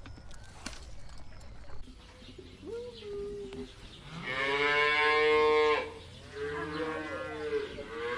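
An animal calling in drawn-out, pitched cries: a short call, then a long loud one about four seconds in, then another near the end.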